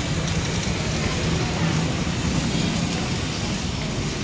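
Street noise of a busy market lane: a motorcycle engine running close by, mixed with other traffic and a murmur of voices.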